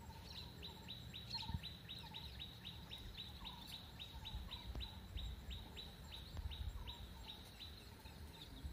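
A bird calling in a fast, even series of short, high, falling notes, about four a second, which stops near the end. A few lower notes sound now and then over a faint low rumble.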